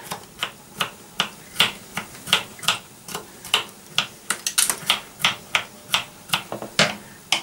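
A small knife chopping garlic finely on a wooden chopping board: quick, even knocks of the blade against the board at about four a second.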